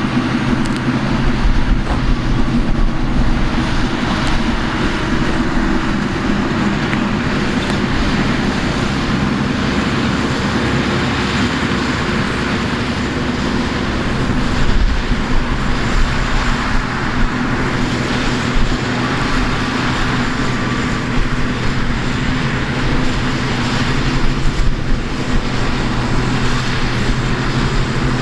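Combine harvester running steadily at work, its engine's hum under an even, noisy mechanical rush, with small swells in level.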